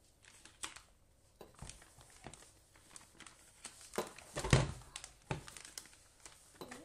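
Plastic piping bag crinkling and rustling as choux pastry is scooped into it, with scattered small knocks and one louder thump about four and a half seconds in.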